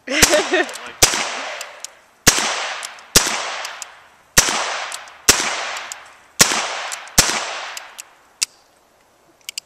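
A revolver fired shot after shot, about one a second. Each sharp report rings out and fades over a second or so.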